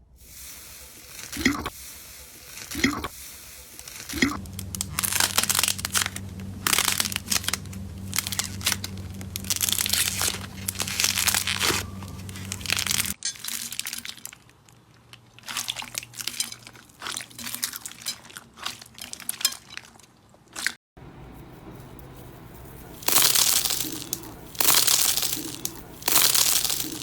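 Slime being squeezed and pressed by hand, giving crackling, crunching noises in dense bursts, over a run of short clips that cut abruptly from one to the next.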